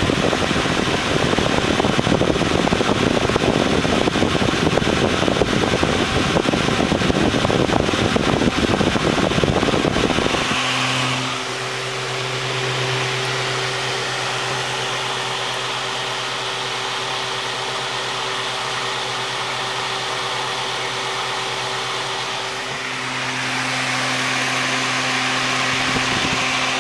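2009 Holmes Blizzard Universal Fan running on its low speed, its 3-blade propeller moving air. A loud rough rumble for about the first ten seconds gives way to a steadier hum and whoosh with a few steady tones.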